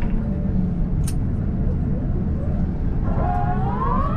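Steady low rumble inside the cabin of an Airbus A350-900 taxiing. There is a sharp click about a second in, and near the end a rising tone that settles into held notes.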